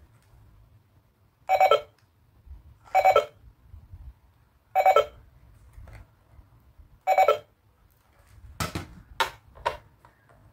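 Pink toy cash register's battery-powered electronic sound effect ringing four times in short bursts, about every two seconds, followed near the end by a quick run of plastic clicks and knocks as the toy is handled.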